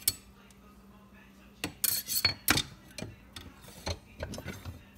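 Kitchenware being handled: a sharp click at the start, then a quick run of knocks and clinks about two seconds in with a brief metallic ring, followed by lighter clicks.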